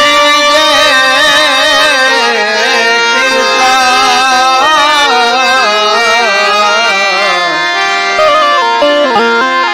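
Devotional folk music: a man singing a Gujarati bhajan in long, wavering, ornamented held notes, accompanied by harmonium.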